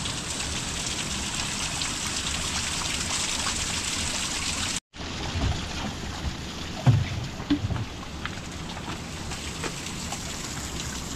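Steady rain with trickling water, broken by a brief silent gap about five seconds in. After the gap the rain is fainter, and a few dull knocks come a couple of seconds later.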